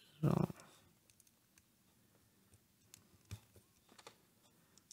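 Faint, scattered clicks of small plastic LEGO pieces being handled and pressed together.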